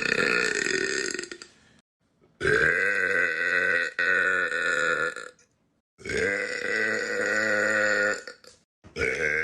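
Long, loud burps from one person, one after another with brief silences between: the tail of one, two full burps of about three seconds each, and the start of another near the end.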